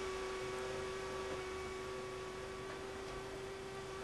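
A steady electrical hum, one even tone over a faint hiss, unchanging throughout.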